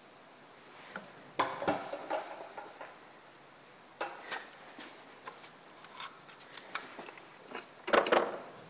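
Short bursts of metallic clinking and scraping from hand-tapping small threaded holes in a steel vise jaw with a tap held in a milling machine's chuck, with no machine motor running. There are about four clusters of clicks, the loudest near the end.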